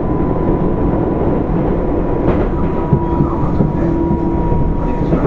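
Running noise inside a JR West 205 series electric train's motor car (Moha 205, MT64 traction motors): a steady rumble of wheels on rail with a thin, even whine, joined for a second or two midway by a lower hum.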